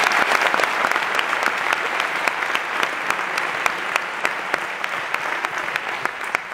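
Audience applauding: a dense patter of many hands clapping that slowly dies down.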